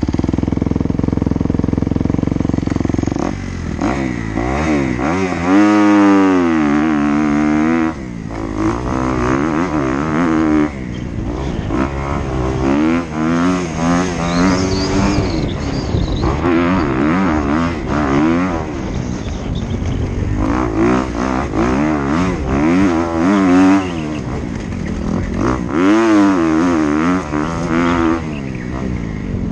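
Kawasaki KX250F's single-cylinder four-stroke dirt bike engine revving hard and easing off again and again as the throttle opens and closes, its pitch rising and falling.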